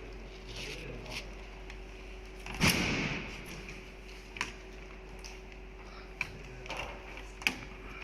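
A steady machine hum with scattered mechanical clicks and knocks, and one louder clunk with a short rush of noise about two and a half seconds in.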